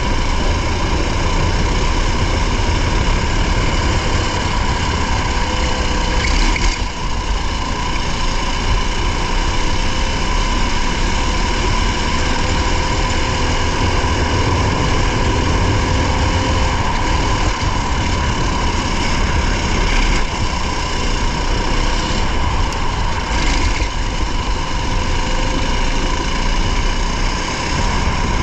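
Race car engine running hard at fairly steady high revs, heard from inside the car, with a heavy rumble of tyre and road noise underneath.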